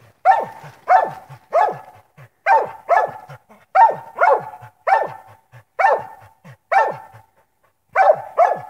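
Coonhound barking steadily at a tree, about two barks a second with a brief pause near the end: its tree bark, the sign that it has a raccoon treed.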